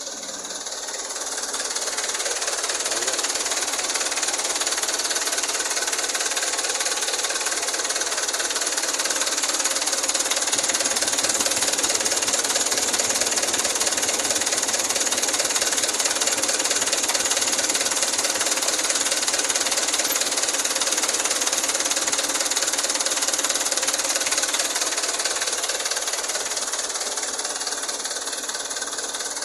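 Mitsubishi Fuso Canter truck's diesel engine running steadily. It grows louder over the first couple of seconds, holds steady, then eases slightly near the end.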